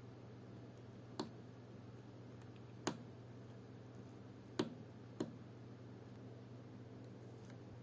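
Four small sharp clicks, spaced unevenly, as metal watchmaking tools touch parts of a Seiko 7S36 watch movement during its service, over a steady low hum.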